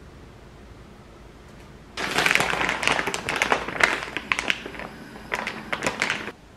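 Plastic packaging of a naengmyeon noodle kit crinkling and crackling as it is handled, with many sharp clicks. It starts suddenly about two seconds in and stops abruptly near the end.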